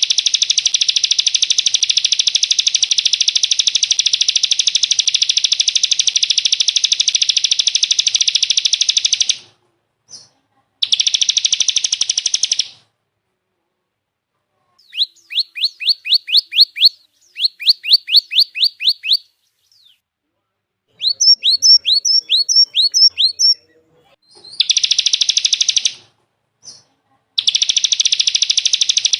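Recorded songbird song: a long, dense, buzzy high trill that stops about nine seconds in, a shorter burst of the same, then runs of quick, evenly spaced slurred whistles at about four a second, and the trill again near the end.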